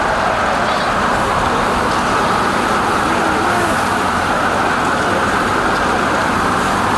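Loud, steady street din like traffic noise, an even wash with no distinct knocks or calls standing out.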